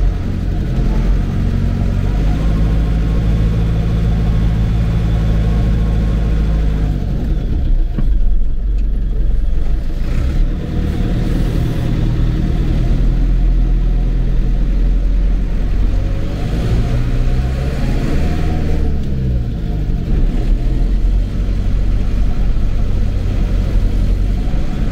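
Mercedes-Benz MB-trac tractor's diesel engine running steadily under way. About two-thirds of the way in, the engine speed drops and then picks up again.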